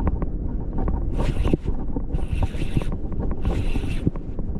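Wind buffeting the microphone as a steady low rumble, with water around a wading angler and a hiss that swells and fades about once a second.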